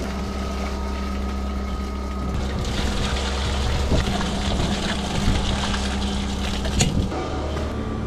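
Milk gushing from the open outlet valve of a stainless steel milk vat and splashing into a steel tray, over a steady machinery hum. The splashing grows loud about two and a half seconds in and stops sharply near the end.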